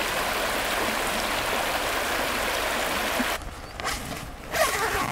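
Shallow stream running over rocks, a steady rush of water. About two-thirds of the way through it cuts off to quieter outdoor sound, with a short rustle of the nylon tent carry bag being handled near the end.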